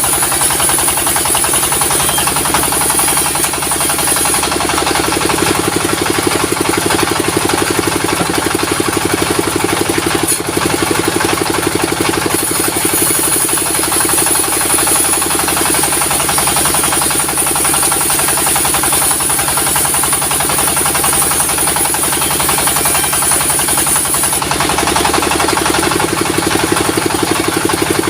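Engine-driven sawmill machinery running steadily with a fast, even pulse. A high hiss grows stronger and weaker a few times, about a third of the way in and again near the end.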